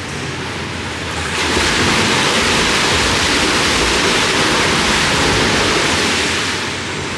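A swimmer splashing hard in a swimming pool, arms and kicking feet throwing up water; the splashing swells about a second and a half in and eases off near the end.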